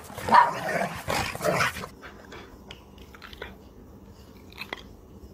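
A dog barking several times in quick succession, then, about two seconds in, only a few soft scattered clicks of a dog chewing.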